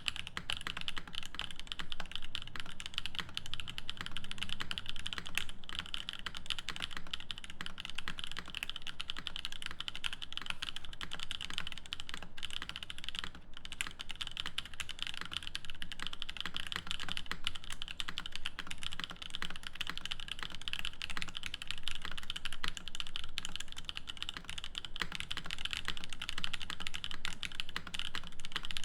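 Continuous fast typing on a 350 mimi mechanical keyboard with an aluminium plate, lubed Moyu Black linear switches and GMK keycaps: a dense, even stream of keystroke clacks, with brief pauses about twelve and thirteen seconds in.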